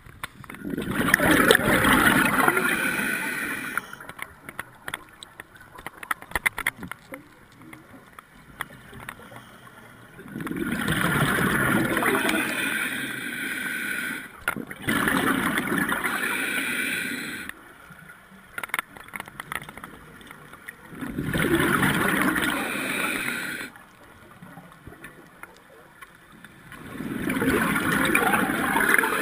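Scuba diver's exhaled bubbles from the regulator, heard underwater: bubbling in bursts a few seconds long that come back every several seconds, with quieter gaps of faint clicks between breaths.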